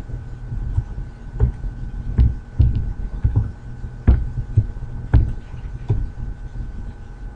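Computer keyboard keystrokes, irregular and thudding, over a steady electrical hum with a faint high whine.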